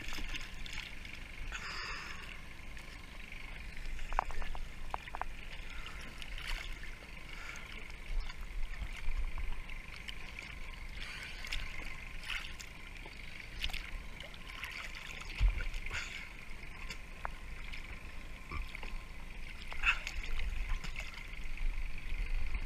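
Sea water sloshing and lapping right at a camera bobbing at the surface, with scattered small splashes and clicks.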